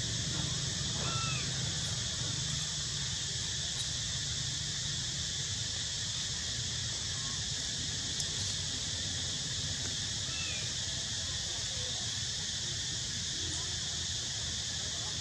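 Steady outdoor background hiss with a low hum beneath it, and a few faint short chirping calls about a second in and again about ten seconds in.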